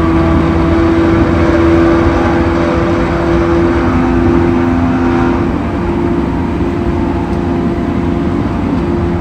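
Running noise inside a JR East E231-1000 series commuter train car: a heavy rumble of wheels on rail with a steady droning hum on top, the abnormal noise (異音) the car is recorded for. A second, lower hum joins about four seconds in and fades out a little past the middle, as the whole sound eases slightly.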